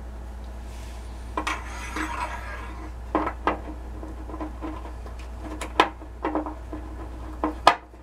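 Scattered metal clinks and knocks of hand tools and a new water-heater heating element being handled and fitted into the tank's element port, over a steady low hum.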